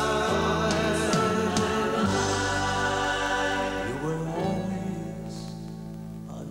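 Closing bars of a slow pop ballad: a held voice over sustained chords, growing quieter about four and a half seconds in.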